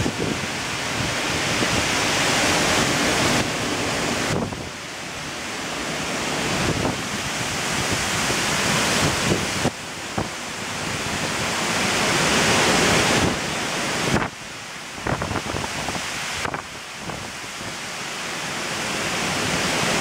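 Strong storm wind gusting through trees and buffeting the microphone, a rushing noise that swells and falls away in surges, dropping off sharply several times.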